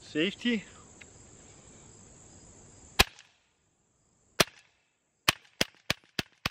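Hatsan .22-calibre PCP semi-automatic air pistol with a shoulder stock firing: a sharp shot about three seconds in, another a second and a half later, then five quick shots about a third of a second apart near the end. Crickets chirp steadily in the first half.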